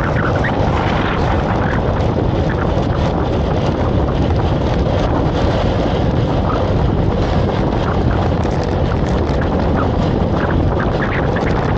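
Wind buffeting the microphone, a loud, steady rushing noise with faint short higher sounds scattered over it.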